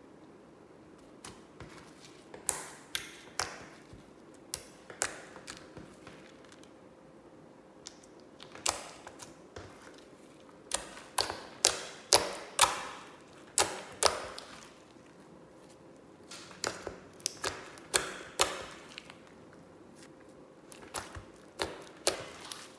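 White slime with mixed-in beads and sequins being kneaded and squeezed by hand, giving irregular sharp clicks and pops in clusters of a few at a time, the loudest run in the middle.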